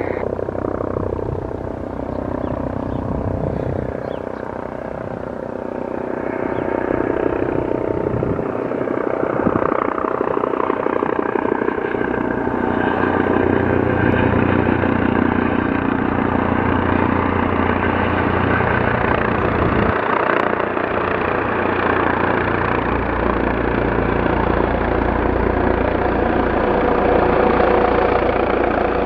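Aircraft engines running: a steady drone with a whine, growing louder between about six and twelve seconds in.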